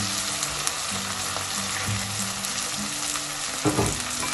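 Onion-tomato masala sizzling steadily in hot oil in a non-stick kadai, with a short knock of the spatula against the pan near the end.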